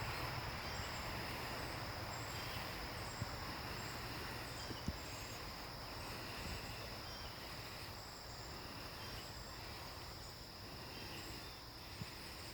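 Steady outdoor ambience with insects chirring continuously in a constant high band, over a low rumble. There are a couple of faint ticks about three and five seconds in.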